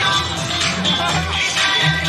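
Pop song with a bass beat played loud over outdoor loudspeakers to accompany a music fireworks show.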